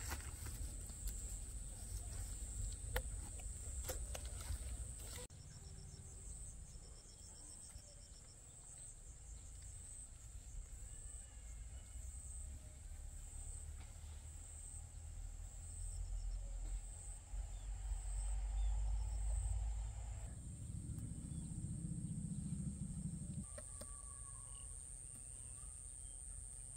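Insects droning in a steady high pitch, pulsing on and off for a stretch and then continuous. In the first few seconds there is snapping and rustling of watermelon vines and leaves as a melon is handled, over a low rumble.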